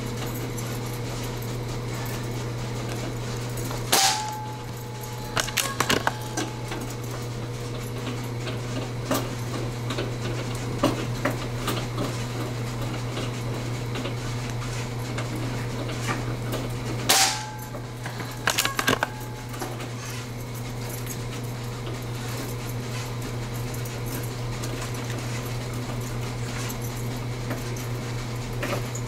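A steady low hum, broken twice by a sharp metallic clank with a brief ring, about four seconds in and again about seventeen seconds in. Each clank is followed a second or two later by a short run of lighter clicks.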